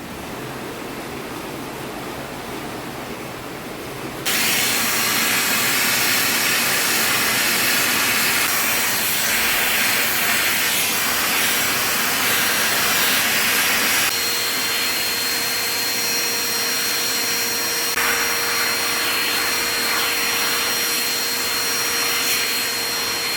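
Wet-and-dry vacuum cleaner running with a cobweb-brush attachment on extended pipes: a steady rushing of air with a thin high whine from the motor. It is quieter for about the first four seconds, then suddenly louder; about two-thirds of the way through the whine changes pitch and a low hum joins it.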